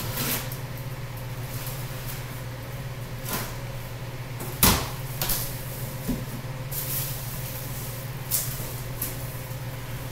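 Sofa's cardboard box and packaging being handled and cut open with scissors: scattered knocks, clicks and rustles, the loudest a sharp knock about halfway through, over a steady low room hum.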